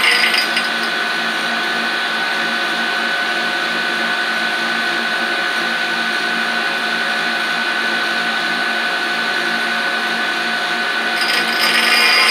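Rockwell tool-and-cutter grinder's wheel spinning with a steady motor hum between passes. The higher hiss of the wheel grinding the helical flute of an end mill stops about half a second in and starts again shortly before the end.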